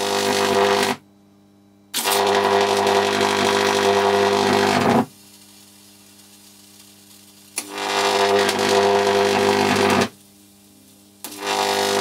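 High-voltage arc from two microwave oven transformers wired in parallel, about 4,200 volts, playing on a beer bottle cap: a loud, harsh electrical buzz with crackling. It cuts in and out in runs of two to three seconds: it stops about a second in, runs again from about 2 to 5 seconds and from about 7.5 to 10 seconds, and starts again near the end. A low hum fills the gaps.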